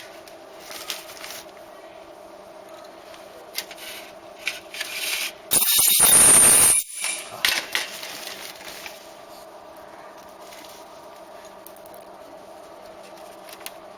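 Hand-held ultrasonic plastic spot welder firing once about five and a half seconds in: a loud, harsh burst a little over a second long, strongest in the high frequencies, as it welds a rivet point on a car door panel. Around it a steady hum with small handling clicks and scrapes.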